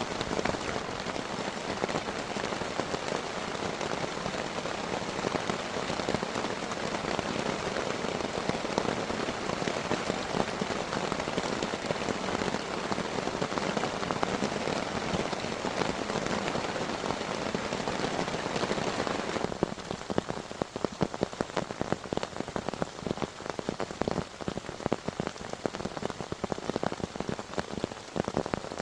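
Heavy rain falling as a dense, steady hiss. About two-thirds of the way through the hiss drops away suddenly, leaving many separate, sharper drop strikes.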